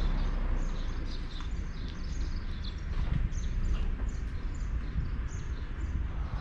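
Birds chirping with many short, high calls, several a second, over a steady low rumble.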